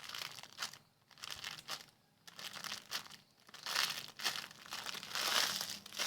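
Plastic bag crinkling in irregular bursts, about one a second, as a foam squishy toy is handled and squeezed in its packaging.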